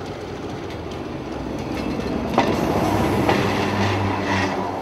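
Vintage diesel railcar (autorail, the 1950 Decauville-built X 2403) passing slowly at close range, its engine humming and its wheels clacking over the rail joints and the level crossing several times.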